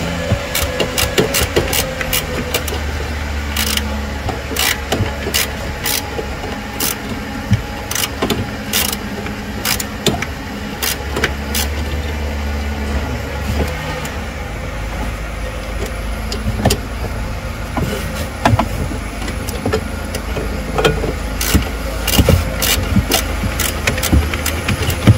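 Scattered sharp metallic clicks and clinks of hand tools working on a car's 12V battery, over a steady low hum of a running car engine.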